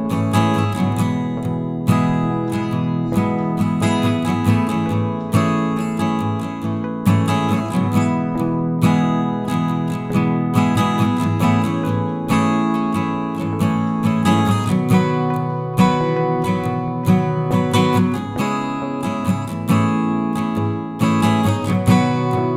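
Background music led by a strummed acoustic guitar with a steady rhythm.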